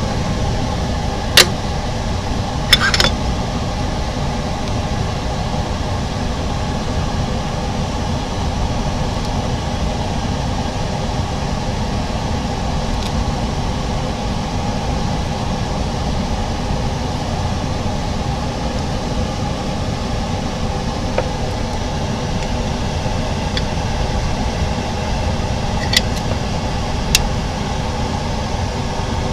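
Steady hum of running workshop machinery, with a few sharp metallic clicks from metal moulds and plates being handled: one about a second in, a short cluster near three seconds, and two near the end.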